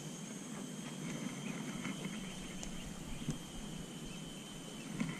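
A steady high insect drone, thin and continuous, with a few faint scattered ticks and taps.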